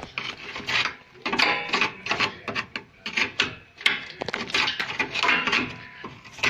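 Repeated irregular scraping and rubbing strokes on rusted metal parts under a car, a few strokes a second.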